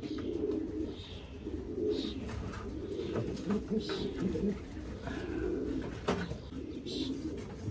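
Racing pigeons cooing continuously in a low, overlapping murmur, with a few faint short clicks among them.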